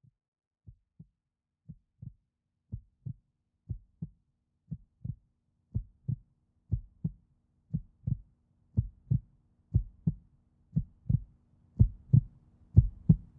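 Heartbeat sound effect: paired low thumps, about one pair a second, growing steadily louder. A faint low hum comes in under them about five seconds in.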